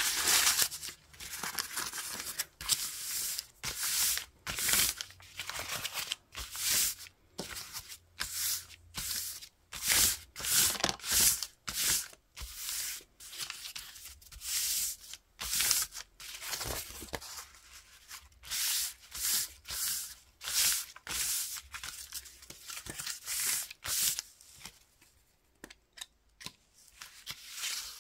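Crumpled brown paper-bag paper rustling and crinkling under hands rubbing and smoothing it flat, in quick, irregular bursts with short gaps between. The footage is fast-forwarded, so the rustles come sped up.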